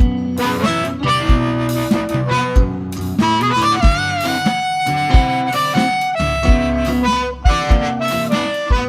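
Blues band playing an instrumental passage: a harmonica solo with bent notes over guitar and a steady kick-drum beat.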